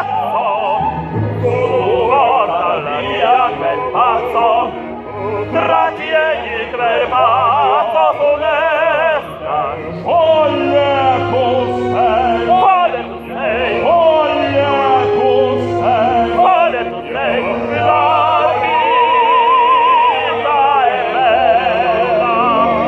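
Opera singing in Italian on stage: several voices with wide vibrato at once, over sustained low instrumental notes. It is an ensemble rehearsal.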